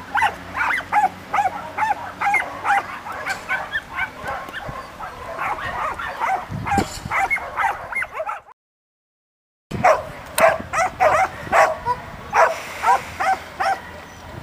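A dog barking in rapid, high yips, several a second, keeping on and on. The sound cuts out completely for about a second, just past the middle, and then the barking carries on.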